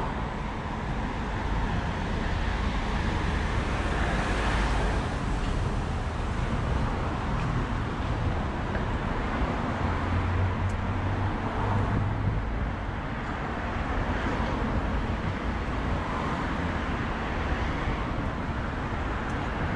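Road traffic noise: a steady wash of passing cars with a low rumble, swelling briefly about four seconds in.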